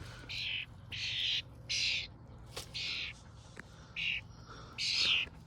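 A bird giving a series of six short, harsh calls, about one a second.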